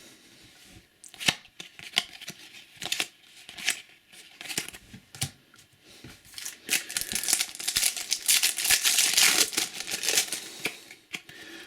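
A trading-card packet wrapper being torn open and crinkled as the cards are handled. There are scattered crackles and taps at first, then a few seconds of continuous tearing and crinkling.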